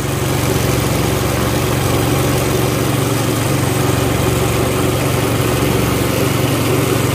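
A wooden longboat's small engine running steadily at cruising speed, pushing the boat upstream. It is a loud, even drone with no change in speed.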